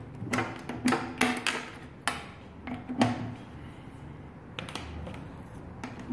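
Lab patch wires being pulled out of and pushed into connectors on a training panel: a run of sharp plastic-and-metal clicks and clacks, several in the first three seconds, then quieter handling of the leads.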